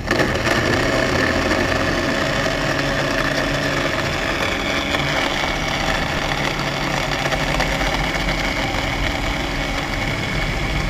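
Electric countertop blender running at full speed, a steady motor whine over the rattle of dragon fruit juice and ice being blended.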